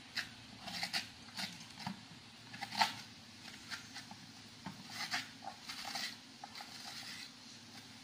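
A spoon scraping the soft pulp out of a miracle fruit's hard shell: irregular short scrapes and clicks of the spoon against the shell, the loudest a little under three seconds in.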